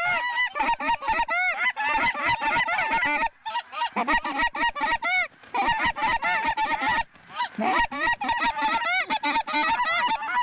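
A large flock of lesser Canada geese honking, many calls overlapping into a continuous din, with short lulls about a third, half and two-thirds of the way through.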